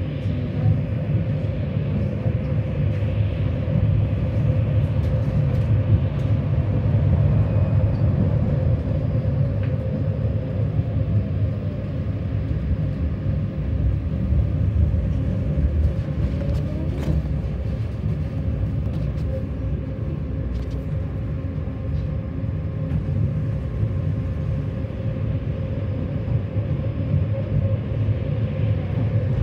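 Tram running between stops, heard from inside the car: a steady low rumble of wheels on rails with a steady hum above it and a few light clicks.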